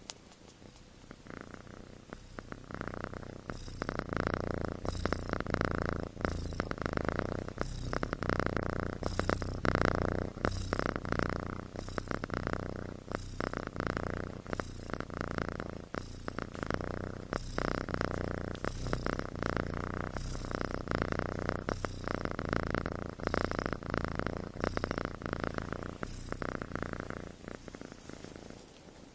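Sleeping kitten snoring with each breath in a steady, repeating rhythm. It starts faint, grows louder over the first few seconds, and fades near the end.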